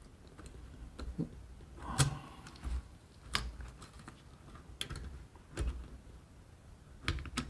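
Scattered sharp clicks and knocks of metal airsoft gearbox parts and a metal rod as the mainspring and spring guide are forced back into the gearbox under compression.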